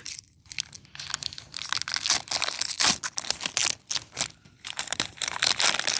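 Foil wrapper of a Pokémon trading-card booster pack crinkling and tearing as the pack is opened, a quick run of dense rustles.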